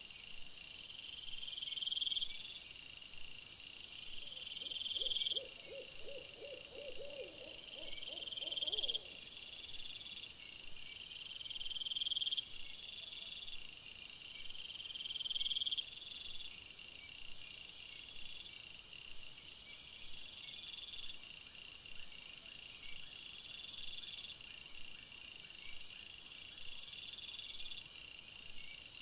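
Night-time insect chorus: high trills that swell over about a second and a half and repeat every two seconds or so, over a faster, higher pulsing. A lower pulsed call joins for a few seconds near the start.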